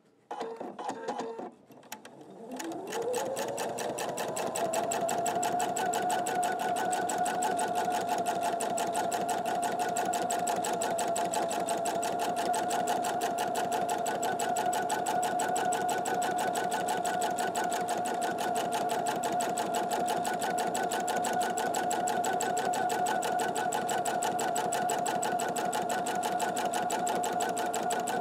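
Domestic sewing machine doing free-motion quilting: a few short clicks at first, then the motor speeds up about three seconds in and runs at a steady fast rate, the needle stitching in a rapid even rhythm.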